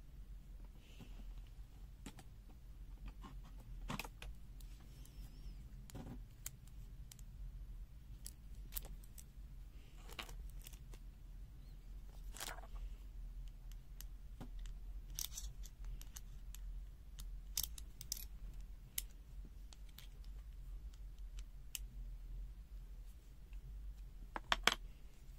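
Scattered small metallic clicks and taps as the metal arms of an adjustable-angle welding magnet and a hex key are handled, with a quick cluster of louder clicks near the end, over a faint steady low hum.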